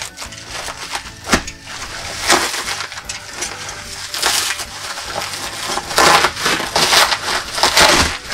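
Bubble-wrap plastic crinkling and crackling as hands grip and pull at it, in irregular loud bursts. The loudest stretches come about two seconds in and over the last four seconds.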